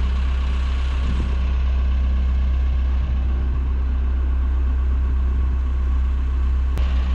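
Heavy diesel truck engine idling steadily, a low, even drone.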